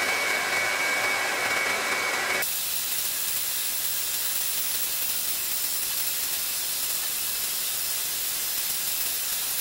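Metal lathe running while its cutting tool turns a conical point on the end of a small threaded steel screw: a steady noise, with a faint whining tone that stops about two and a half seconds in.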